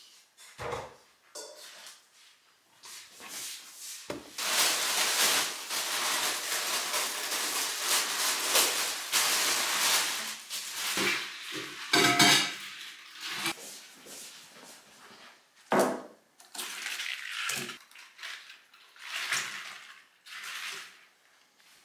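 Brown kraft paper rustling and crinkling for several seconds as a wrapped bunch of tulips is unwrapped. Midway there is a louder, briefly ringing clink, then scattered knocks, clicks and snips as the stems are trimmed with scissors and set into a glass vase of water.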